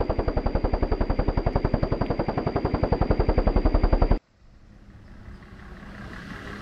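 Propeller aeroplane engine sound effect: a piston engine running with a fast, even pulsing beat that cuts off suddenly about four seconds in. A quieter truck engine hum then fades in, slowly growing louder.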